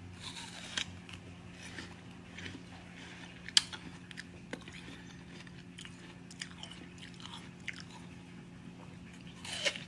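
A person biting and chewing pieces of watermelon: irregular crisp crunches and wet chewing clicks, with one sharper crunch about three and a half seconds in.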